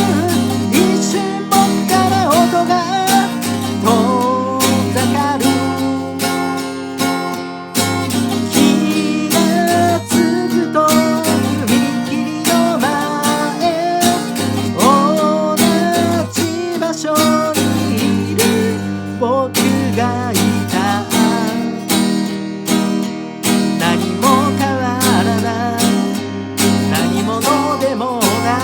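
Acoustic guitar strummed in a steady rhythm, its tuning slightly off, with a wavering melody line above the chords.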